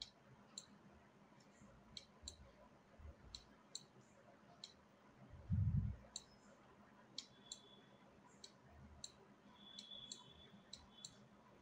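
Computer mouse clicks at irregular intervals, roughly one or two a second, as the mouse is used for editing work. About halfway through there is a short low thud.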